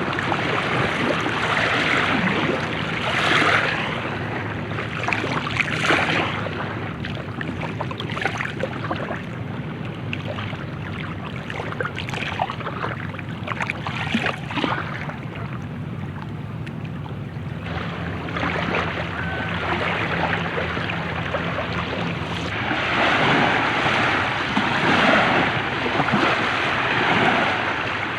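Light ocean waves washing onto a shore, the surf noise swelling and ebbing, with louder surges near the start and again near the end. A steady low rumble and some wind on the microphone run underneath.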